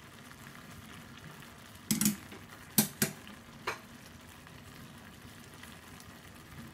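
Sweet potato pieces simmering in water in a steel pan, a faint steady bubbling hiss, broken by four short knocks and clinks between about two and four seconds in as grated jaggery is tipped in from a bowl.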